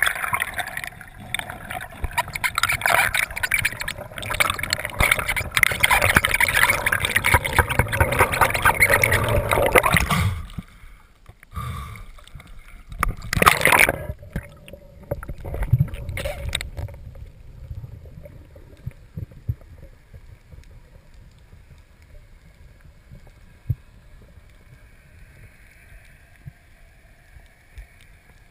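Water churning and bubbling over an underwater camera for about ten seconds. It then drops away to a quiet underwater hush, with a short burst of bubbling a few seconds later and a few scattered clicks.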